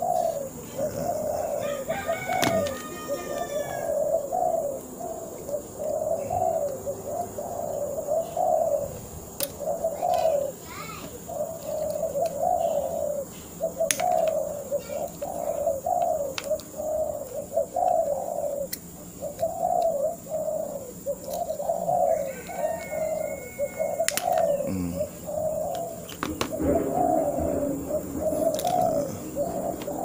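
Doves cooing in a steady run of coos, about one a second, with a few short, higher chirps from small birds.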